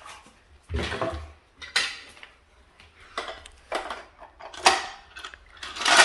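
Irregular rustles and rattles of a Casdon toy Dyson vacuum's hard plastic parts and its packaging being handled, with a dull knock about a second in and the loudest clatter near the end.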